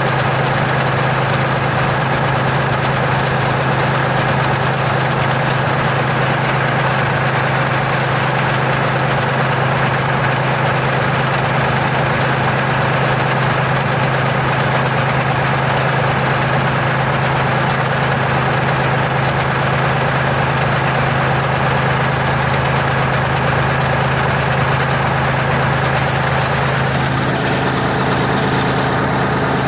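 Diesel engine of a Terex R-35 rigid haul truck running steadily at a constant, loud level. Its tone shifts slightly about 27 seconds in.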